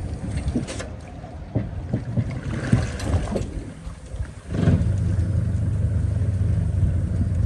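Engine running with a low, uneven rumble and scattered knocks and clunks; about four and a half seconds in, a louder, steady engine note comes in and holds.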